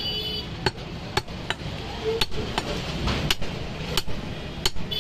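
Heavy meat cleaver chopping goat meat into small pieces on a round wooden chopping block: about eight sharp chops at an uneven pace, the blade striking through the meat into the wood.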